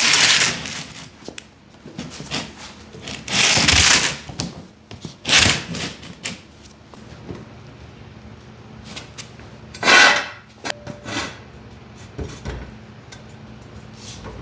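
Workshop handling noises during an ATC70 teardown: a series of loud scrapes and clunks from parts and tools being moved, the biggest near the start, at about three and five seconds in, and again around ten seconds, with a faint steady hum underneath from midway on.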